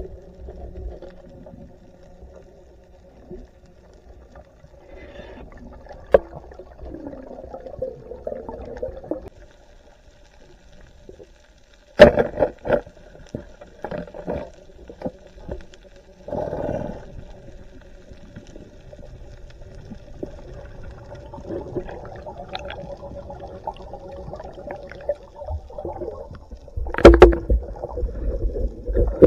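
Underwater sound of a night spearfishing dive, heard from below the surface: muffled water movement over a steady low hum, broken by several sharp knocks. The loudest knocks come about twelve seconds in and again near the end.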